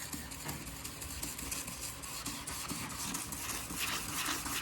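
Wet sandpaper (3000 grit, on a hand sanding pad) rubbing back and forth across a plastic headlight lens in steady, repeated strokes, a soft scratchy swishing that gets more pronounced near the end. The lens is being sanded down to a haze to strip its yellowed, oxidised surface.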